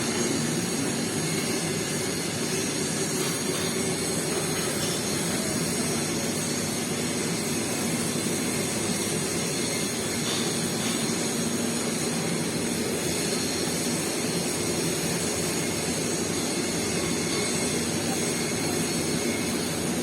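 Electric arc welding on a stainless steel pipe: a steady, unbroken arc noise with a faint hum underneath.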